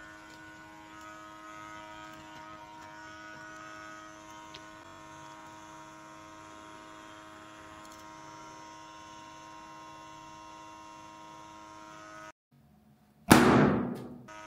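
Lensgo Smoke B handheld smoke machine running with a steady hum of several tones, which stops suddenly near the end. About a second later a smoke-filled balloon bursts with a loud bang that dies away over about a second.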